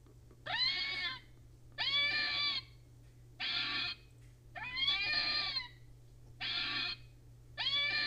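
Red fox calling: six short, arched calls, each rising then falling in pitch, about one every second and a half.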